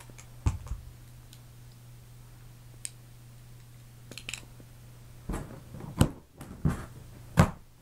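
Handling noise: a few light clicks over a faint steady hum, then several loud knocks near the end as a camera lying face down is picked up and moved.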